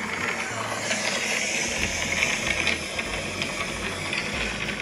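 A steady hiss with a low hum beneath it.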